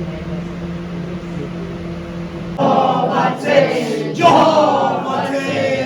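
A group of people singing together, starting about two and a half seconds in, after a steady low hum.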